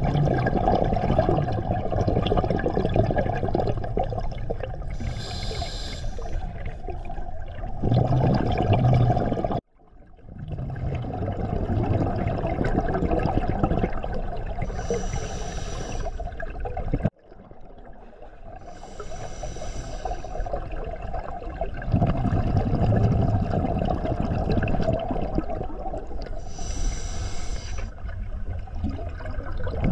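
Scuba diver breathing underwater through a regulator: a short hissing inhale every several seconds between long streams of exhaust bubbles. The sound cuts off abruptly twice, about a third and about halfway through.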